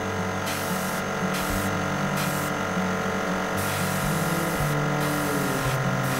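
Airbrush on its fine setting hissing in short on-off bursts as the trigger is worked, spraying primer into the corners and edges of a model wagon body. A steady hum runs underneath.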